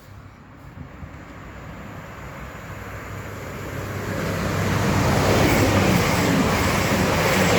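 Class 222 Meridian diesel multiple unit approaching and running through the station at speed. The rumble of its engines and wheels grows steadily louder over the first five seconds, then stays loud.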